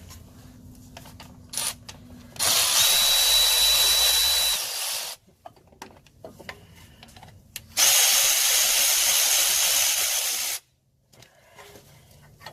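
A power tool backing out the upper and lower brake caliper bolts on a 2000 Chevy Blazer's front wheel: two steady runs of about three seconds each, one per bolt, with a pause between them.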